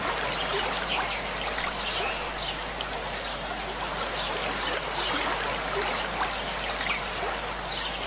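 Steady rush of running water, with many short high chirps scattered over it.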